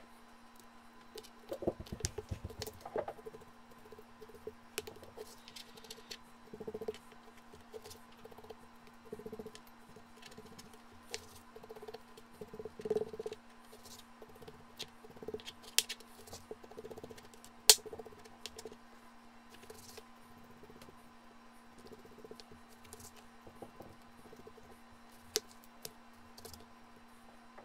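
Kitchen knife cutting a rack of raw pork back ribs into single-rib pieces on a cutting board: soft slicing and scrapes with scattered taps and knocks of the blade on the board, and one sharp click about two-thirds of the way through. A faint steady hum runs underneath.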